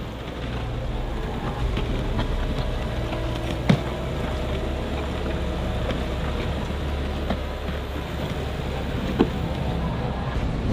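Heavy diesel engines of a Caterpillar bulldozer and wheel loader running steadily, as the loader pulls the mud-stuck dozer free. Two sharp knocks sound, a little under 4 s in and again about 9 s in.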